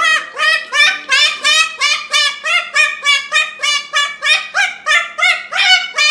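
A bird giving a rapid, even run of short calls, about four a second, each call rising in pitch.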